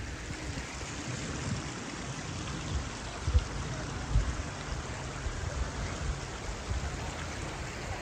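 Steady rushing of a small meltwater stream, with low, irregular bumps underneath and a sharper knock about three and a half seconds in.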